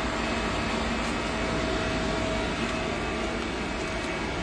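Mori Seiki CL-20A CNC lathe running with a steady mechanical hum and whir, with faint constant tones over the noise.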